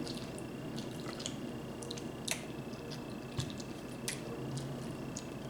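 Faint wet squishes and scattered small clicks of someone eating: a sauce-covered boiled egg from a seafood boil being handled and bitten.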